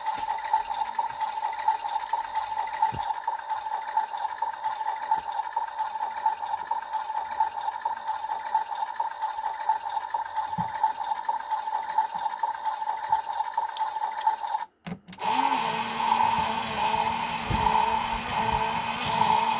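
Small electric motor of a Casdon Washmatic toy washing machine running with a steady whine. About fifteen seconds in it cuts out for a moment, then runs again with a changed tone and an added lower hum.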